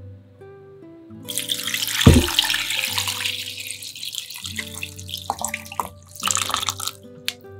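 Water poured from a metal bowl into a stainless steel pot of bamboo shoots, splashing over them, with a low thud about two seconds in as the pour lands. It eases off, then a second, shorter splash comes near the end. Background music runs underneath.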